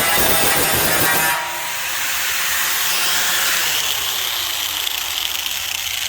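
Angle grinder cutting and grinding rusted sheet steel. It is loudest for the first second and a half, then runs on a little quieter with a high whine that rises and falls as the disc bites.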